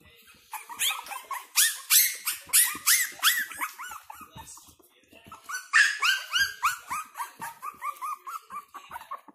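Four-week-old Frenchton (Boston terrier × French bulldog) puppies crying in quick, high-pitched yelps and whines, about three a second. A first run lasts a few seconds; a second, longer run starts about halfway through.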